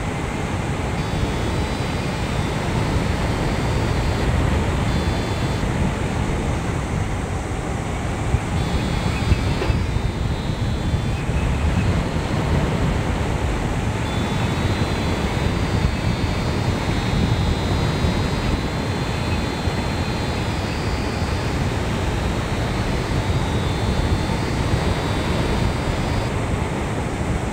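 Airflow rushing over the microphone of a hang glider in flight: a loud, steady wind roar. Thin high electronic tones come and go above it in several stretches, stepping slightly in pitch, typical of a flight variometer.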